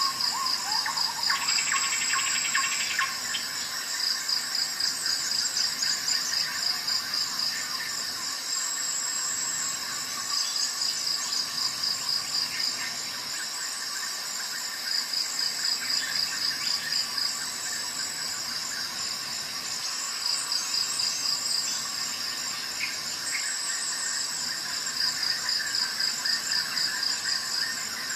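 Insects chirping, cricket-like: high, rapid pulsed trills in repeated bouts of about two seconds with short pauses between, over a steady high-pitched tone.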